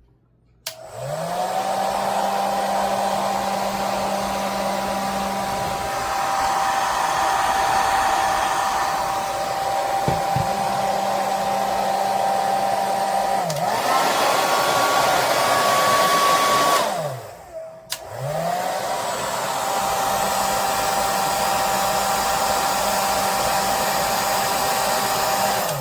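Handheld hair dryer switched on, its motor whine rising as it spins up, then running steadily with a rush of blown air. Partway through the whine steps up in pitch, then the dryer is switched off and back on, spinning up again and running until near the end.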